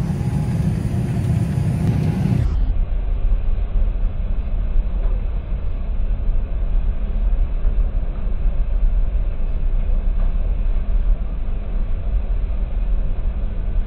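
Tractor running steadily while pulling a twin-rotor rake through rows of straw, the rake rotors turning. The sound is a steady rumble that turns duller and deeper a couple of seconds in.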